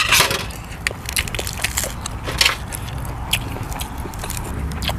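Fresh lettuce being torn and broken by hand, making crisp, irregular snapping and crackling.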